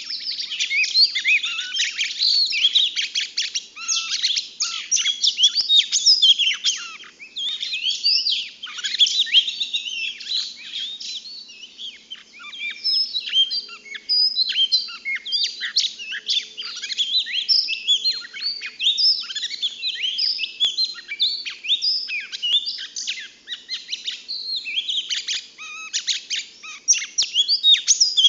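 A female murai cacing, a magpie-robin-type songbird, singing a long, rapid, varied run of high chirps and whistled slurs, with a few short gaps.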